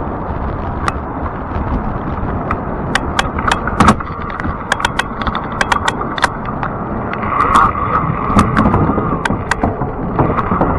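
Riding noise from a fat-tire electric bike: steady wind and tyre rush with a string of sharp clicks and rattles as the bike jolts along the path. A steady whine comes in about seven seconds in.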